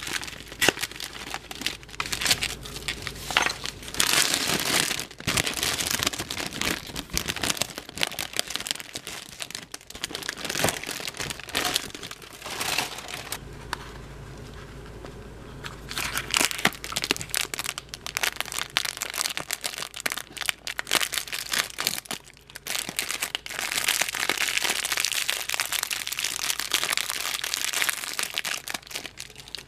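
Foil wrapper crinkling and rustling as it is peeled off a large chocolate egg, then a clear cellophane toy bag crinkling as it is handled, with a short quieter pause about halfway through.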